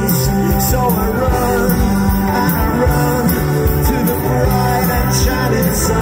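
Live rock band playing loud: electric guitars over drums and cymbals.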